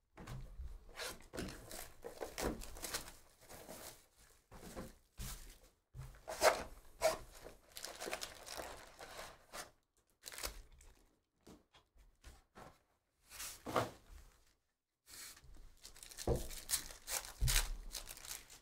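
Trading-card hobby box and its foil packs being handled and torn open: irregular rustling, crinkling and tearing of wrapper and cardboard, with a few louder scrapes.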